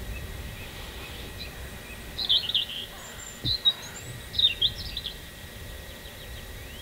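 A small songbird chirping in three short, quick bursts, about two seconds in, in the middle, and again soon after. The calls are high and clipped, not the cranes' low trumpeting, over a steady low background rumble.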